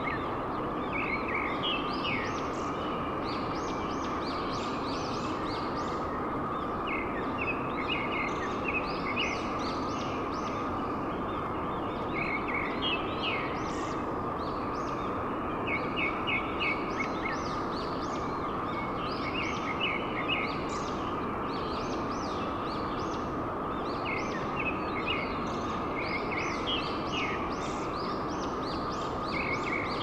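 Steady rush of water from a fast river and waterfall, with birds calling over it in short runs of quick high chirps every couple of seconds.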